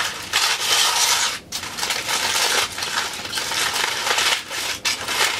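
Aluminium-foil cooking pouch crinkling and crackling as it is torn and folded open by hand.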